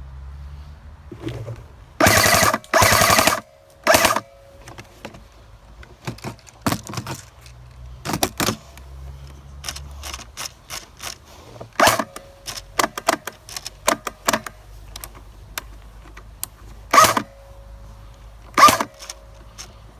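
Airsoft gun firing full-auto: two loud bursts of rapid shots, each about a second long, about two seconds in, then a shorter burst, followed by scattered single sharp snaps.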